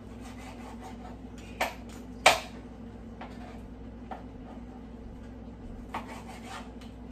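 Knife cutting cooked sausages on a cutting board: light rubbing and scraping with a few sharp knocks of the blade on the board, the loudest about two seconds in, over a steady low hum.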